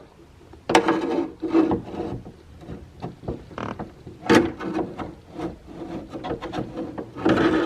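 Plastic window slider being pushed along the metal window channel: an uneven run of scraping rubs and sharp clicks.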